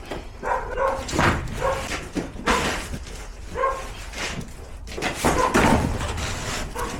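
A dog giving several short yips and barks, mixed with knocks and clatter.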